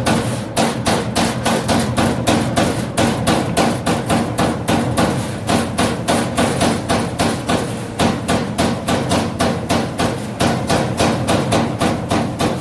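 32-station hydraulic CNC turret punch press punching sheet metal in a rapid, even series of hits, about four a second, over a steady machine hum.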